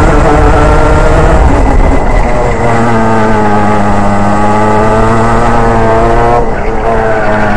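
Racing kart's engine heard close up, running hard. Its note drops about a third of the way in, then climbs slowly as the kart accelerates. Near the end it cuts out briefly as the throttle lifts, then picks up again.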